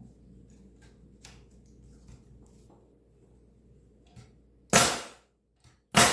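Senco pneumatic stapler firing 1 1/4-inch staples into seasoned white oak: two sharp pops a little over a second apart near the end, after faint handling clicks.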